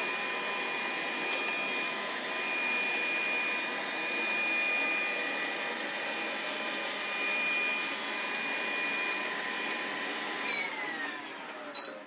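CleanMate 365 robot vacuum cleaner running steadily, its motor with a high whine. Near the end there is a short knock, the motor's pitch falls as it winds down, and a sharp click follows.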